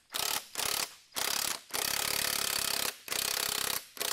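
Impact wrench hammering in a series of short bursts, the longest about a second, as it turns the forcing screw of a harmonic balancer puller to draw the balancer off a Ford 289 V8's crankshaft.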